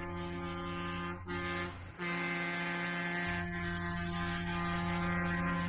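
Train air horn sounding a held chord of several tones, broken off briefly between about one and two seconds in, then a long blast that cuts off sharply near the end.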